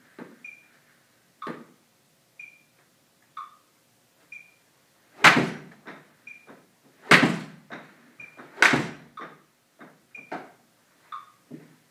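Smartphone metronome app beating a two-beat pattern, a higher and a lower beep alternating about once a second. A full golf swing off a hitting mat into an indoor screen makes three loud thuds about a second and a half apart near the middle, the loudest sounds here.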